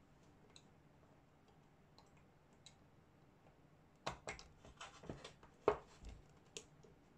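Metal lockwork of a Wingun 708 CO2 revolver clicking and knocking as it is handled in the opened frame. A few faint ticks come first, then a busy run of clicks and knocks from about four seconds in, the loudest near the end.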